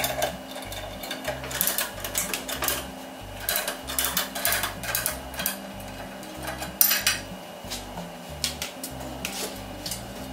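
Metal clanks, clicks and rattles from the clamps and chains of a bending form being tightened on steamed wooden wagon bows, the sharpest clank about seven seconds in, over background music with a steady bass line.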